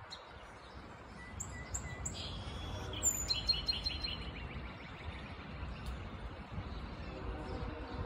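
Small birds chirping: a few short high chirps about a second and a half in, then a quick run of repeated notes around three seconds in. Under them runs the steady low rumble of a distant train, with a faint steady hum coming in near the end.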